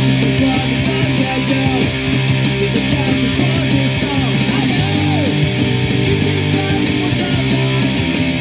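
Electric guitar strumming chords through a Roland Micro Cube amp with a Boss ME-25 effects unit, played along with a punk rock track.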